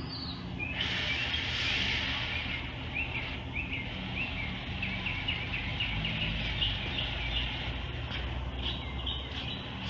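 A bird chirping repeatedly in quick short high notes, over a low steady hum.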